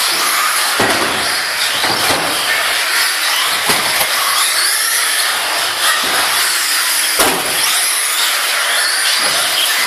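Team Associated B44 1/10 electric four-wheel-drive buggies running on a carpet track: a high motor and drivetrain whine that rises and falls with the throttle, over tyre noise, with a few short thumps about one, four and seven seconds in.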